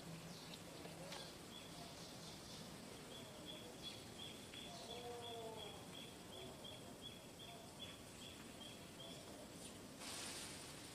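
Quiet outdoor ambience with a faint high-pitched chirp repeating about three times a second from about three seconds in, and a faint low gliding call about five seconds in.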